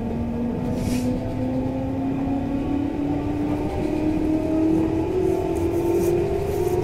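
JR 221 series electric train accelerating away from a station, heard from inside the carriage: the traction motors' whine rises steadily in pitch over the rumble of wheels on rail.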